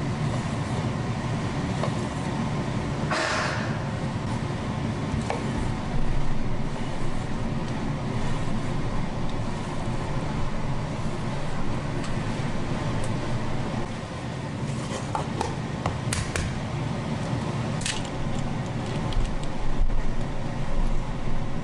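A chef's knife slicing raw tautog fillet on a cutting board over a steady low hum, with a short burst of noise about three seconds in and a few light clicks near the end.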